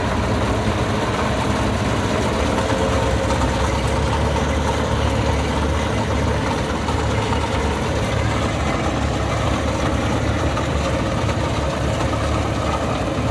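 Kubota DC60 combine harvester's diesel engine running at a steady, unchanging pitch and level.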